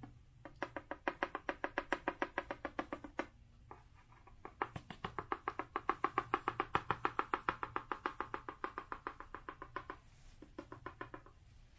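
A hand-held sifter cup of ground-cover scenery material being shaken or tapped over a model railroad layout, making quick, even rattling taps, about seven a second. The taps come in three runs with short pauses, the middle run the loudest.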